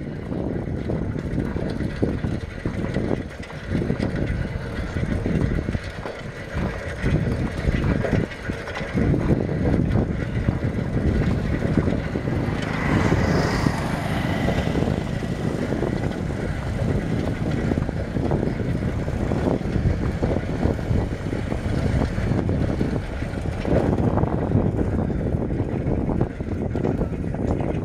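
Wind buffeting the microphone over the low running noise of a moving vehicle: a loud, uneven rumble with no pauses.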